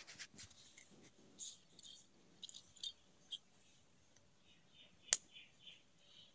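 Faint light clicks and taps of wooden matchsticks being handled and set down on a tile floor, with one sharp click about five seconds in.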